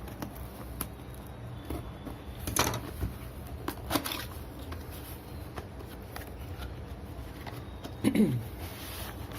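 Cardboard packaging of a trimmer box being opened and handled: scattered light scrapes, taps and rustles, with a brief sound dropping in pitch about eight seconds in.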